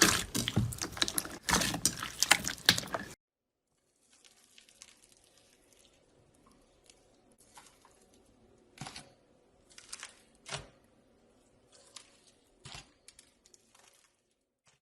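Slime being squished and worked by hand: dense crackling and popping for about three seconds, then an abrupt cut to a quiet stretch with a few faint, scattered pops and clicks.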